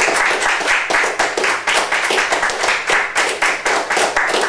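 A small group of people applauding, a few pairs of hands clapping steadily and unevenly.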